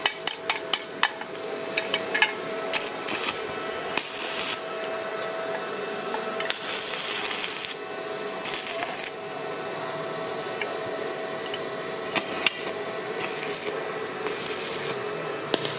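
Stick welding with a Ptools ZX7-270 mini inverter arc welder on steel tube. The electrode clicks and scratches against the metal several times in the first second or so, then the arc catches in about six short crackling bursts, each a second or less, breaking off in between. The running welder hums steadily underneath.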